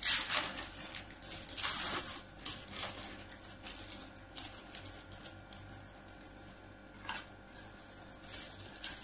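Thin plastic wrapper crinkling as it is peeled off a cheese slice: a run of crackly rustles, loudest in the first few seconds, then softer, scattered crinkles.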